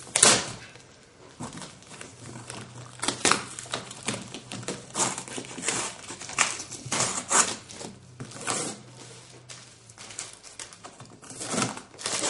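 Packing tape being peeled and ripped off a cardboard box in a string of irregular tearing strips, with the tape and cardboard crinkling between pulls.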